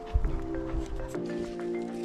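Background music: a gentle melody over held chords. A low thump sounds about a quarter second in.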